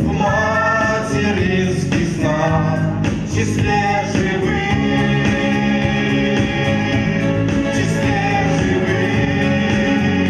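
A song: singing over an instrumental backing.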